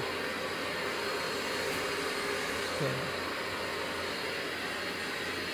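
Steady whooshing noise with a faint low hum, like a fan or blower running.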